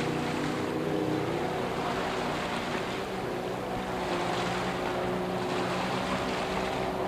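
Jet boat engine running hard, its pitch shifting as the throttle changes, over a steady rush of water from the jet.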